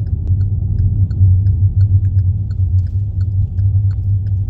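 Steady low rumble of the car heard from inside the cabin, with a railway crossing warning bell dinging faintly about three times a second as a train passes.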